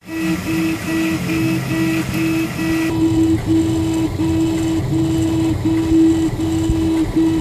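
3D printer printing, its stepper motors whining in short repeated notes of one pitch, about two a second, as the print head moves back and forth laying infill, over a steady whir.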